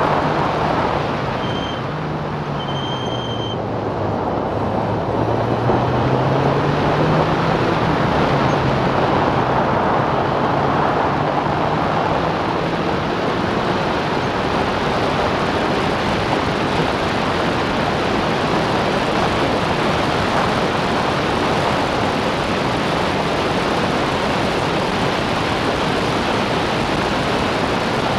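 Open-cockpit race car at speed, heard from on board: heavy wind and road rush over the engine note. The engine pitch drops through a corner, then climbs as the car accelerates and holds high down the straight. Two brief high-pitched tones sound early on.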